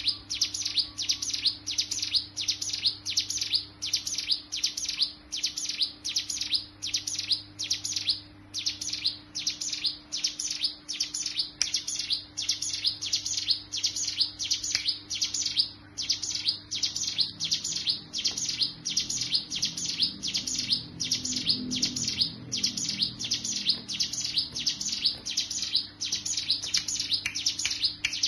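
Ciblek gunung (hill prinia) singing its 'ngebren' song: an unbroken run of sharp, high chirps, about two a second, very even in rhythm.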